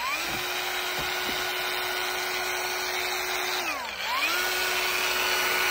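Workfix cordless angle grinder running free in the hand with a steady high motor whine. About four seconds in it slows down and then spins straight back up to speed.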